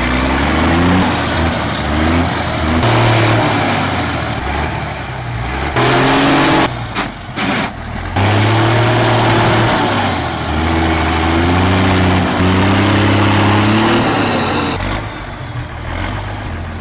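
M923 military 6x6 truck's diesel engine revving hard under load as it strains against a tree stump, its pitch rising and falling repeatedly, with a few short dips in sound partway through.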